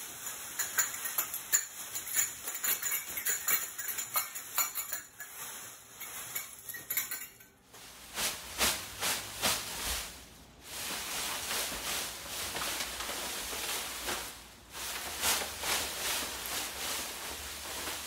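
Homemade soundsuits shaken by dancing wearers. First comes a foil-covered suit giving quick irregular clinks and jingles. After about eight seconds it gives way to a suit of hanging paper strips, which makes a dense rustle in waves as the wearer sways and bends.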